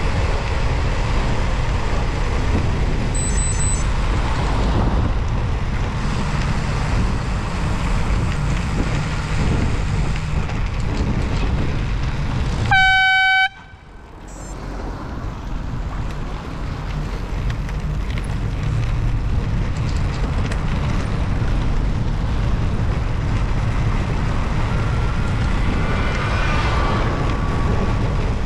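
AirZound bicycle air horn honking once about halfway through, a loud steady blast of under a second, over steady rushing wind and road noise from the moving bicycle.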